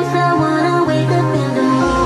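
Music played through a Samsung HW-C430 2.1 soundbar and its wireless subwoofer, streamed over Bluetooth from a laptop. A melody runs over a steady bass line, and the bass moves to a deeper note near the end.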